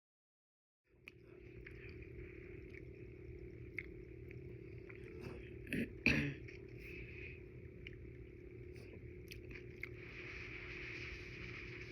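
Udon noodles being eaten close to the microphone: chewing with scattered small wet clicks over a steady low hum, and a louder burst about six seconds in.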